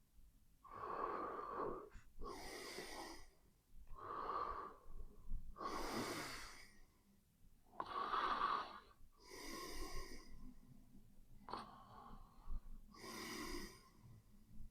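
A sleeping person snoring, about four slow breaths in an even rhythm. Each is a rough, rasping snore followed at once by a hissing, airy rush of breath.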